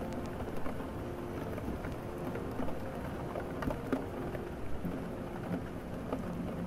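Steady rain, with scattered small ticks of drops, and faint low tones beneath it.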